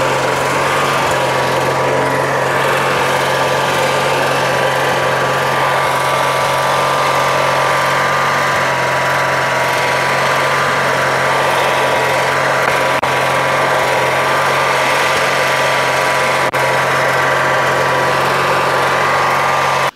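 Lawn tractor engine running steadily at an even, unchanging pitch.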